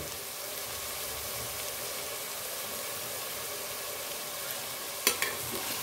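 Mutton and onions sizzling steadily in hot oil in an open pressure cooker, with a sharp click about five seconds in.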